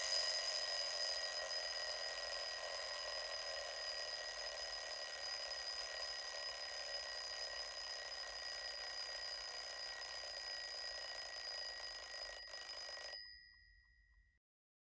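A bell ringing continuously, like a mechanical alarm clock bell, loudest at the start and then steady. It stops abruptly about thirteen seconds in, with a brief ring-out.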